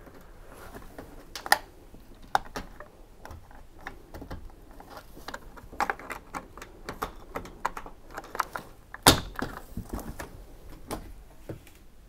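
Irregular clicks, taps and light knocks from hands working the door-lock hook inside the open top of a Beko front-loading washing machine. A sharper clack about nine seconds in is the door latch releasing.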